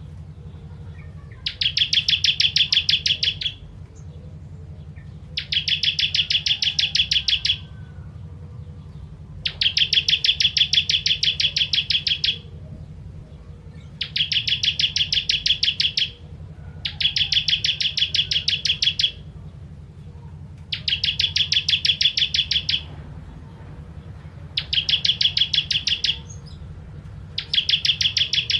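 Bar-winged prinia (ciblek kristal) singing: a rapid, high trill of many short notes lasting about two seconds, repeated about every three to four seconds, roughly eight times.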